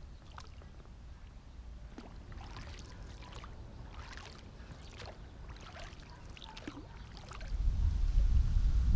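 Faint lapping and ticking of pond water at the bank. About three-quarters of the way in, a loud low rumble of wind buffeting the microphone sets in and stays.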